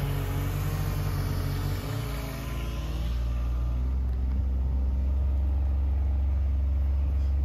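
An engine running; about two seconds in its note drops, and it settles into a steady low hum.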